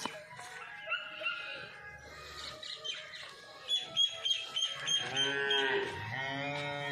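A cow mooing twice near the end: two long, drawn-out calls, each rising and then falling in pitch.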